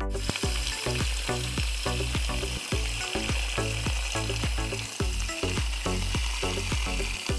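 Water from a garden tap pouring into a pot of sliced bamboo shoots, a steady hiss. Background music with a quick, steady beat plays underneath.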